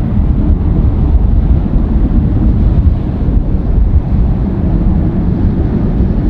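Panavia Tornado's twin RB199 jet engines giving a loud, deep, crackling rumble, like an earthquake, steady throughout.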